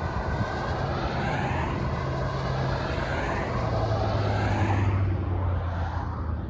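Low, steady engine drone of a distant diesel locomotive, its pitch shifting a little partway through. A rushing noise swells and then fades over it.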